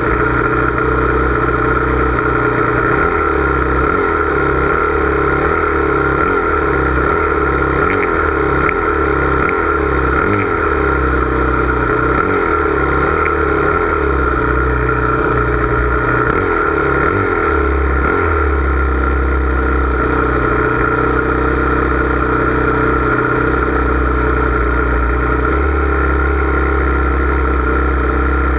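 Steady engine drone, even in level, with its low end wavering unevenly for a stretch in the middle.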